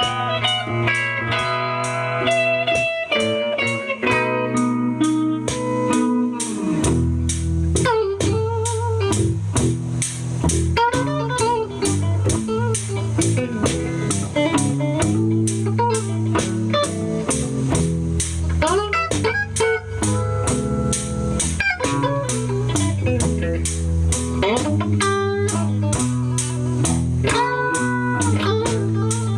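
Live blues instrumental: electric guitar playing lead lines with bent notes over a steady beat, with a low bass part coming in about seven seconds in.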